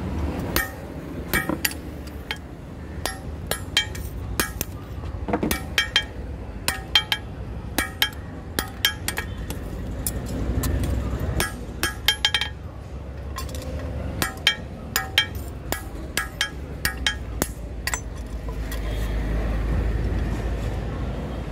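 Hand hammer striking a rebar axe on a steel anvil: runs of quick, ringing metallic clinks with short pauses between them. A low rumble swells in the background about halfway through and again near the end.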